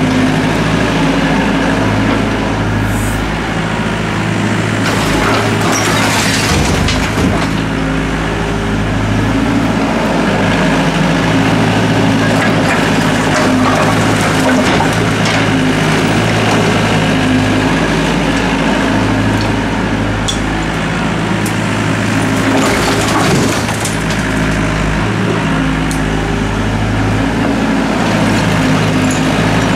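Doosan DX55W wheeled mini excavator's diesel engine running steadily under working load, while its bucket scrapes and digs through brick and concrete rubble, with clattering crashes of bricks and debris several times.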